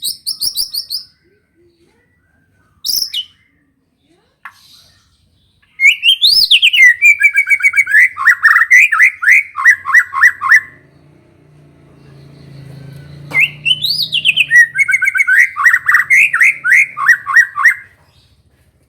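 White-rumped shama singing canary-like phrases learned as fill-in song. A short trill and a single brief note come first, then two long phrases, each opening with a rising and falling whistle and running into a fast string of quick notes.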